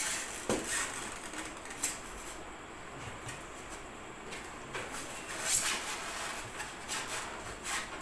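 Rustling and light knocks of a plastic RC concrete mixer truck being handled in its foam packaging tray, with a sharp knock about half a second in and a louder rustle about five and a half seconds in.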